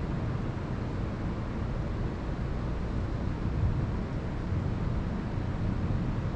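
Wind buffeting the microphone: a steady low rumble with a fainter hiss above it and no distinct events.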